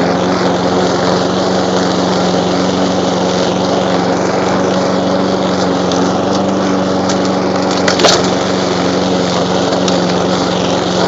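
Troy-Bilt 21-inch walk-behind lawn mower's Honda engine running steadily under load while its blade cuts tall brome grass. A single sharp knock about eight seconds in, like something struck under the deck.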